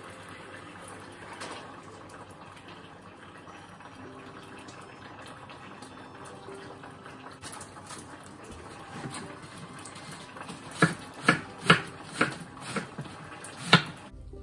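Faint steady running water, then near the end six sharp knocks about half a second apart: a kitchen knife chopping cabbage on a cutting board.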